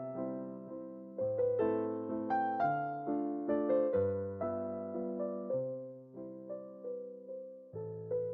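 Background music: a soft electric piano melody, one note after another, each note fading after it is struck.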